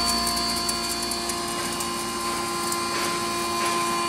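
A 10 HP double-chamber maize grinder running steadily while grinding corn kernels. Its drive gives a constant hum with several steady tones over a rough, even grinding noise.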